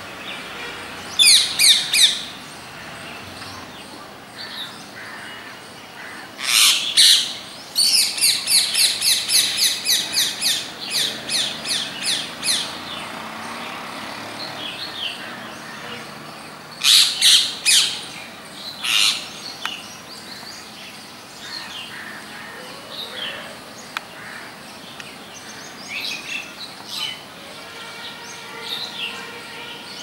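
Rose-ringed parakeets calling: harsh, shrill screeches in bursts, with a fast run of about a dozen repeated calls a few seconds in, then scattered fainter calls.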